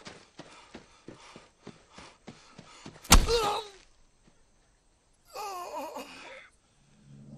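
Quick footsteps on dry ground and brush in a film soundtrack, then a sudden loud thud about three seconds in with a man's short cry. A second strained grunt follows about two seconds later.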